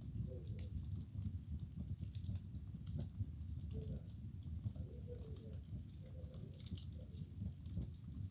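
Wood fire burning in a fireplace, crackling with irregular small pops over a steady low rumble.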